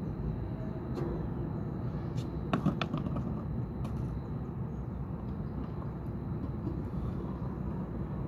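Steady low outdoor rumble, with a few sharp clacks about two and a half seconds in.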